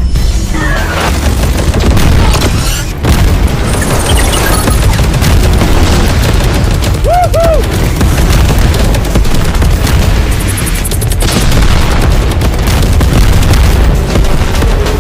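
Loud action-film soundtrack: dense booming gunfire and explosions of a mech battle under driving music.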